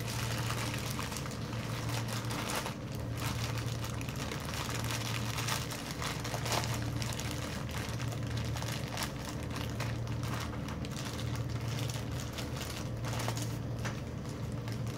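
Clear plastic bag crinkling and rustling in a steady stream of small crackles as it is handled and opened, over a steady low hum.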